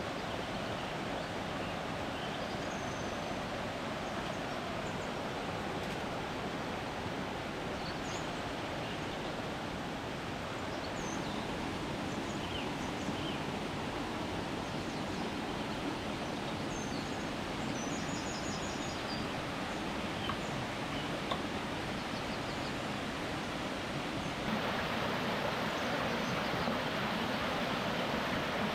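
Steady outdoor background noise with a few short, high chirps scattered through it; the noise gets louder about 24 seconds in.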